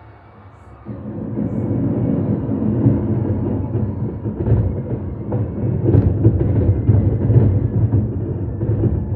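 Fireworks going off in quick succession: a dense rumble of booms that starts suddenly about a second in, with sharper bangs standing out above it.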